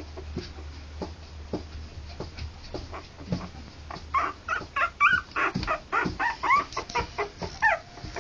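Three-week-old poodle puppies whimpering: short high squeaks and whines that bend up and down, starting about halfway in, over scattered small clicks and scuffles.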